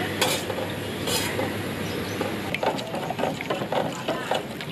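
Metal ladle stirring coconut milk in a stainless steel pot, scraping and clinking against the pot, with two sharper clinks in the first second or so.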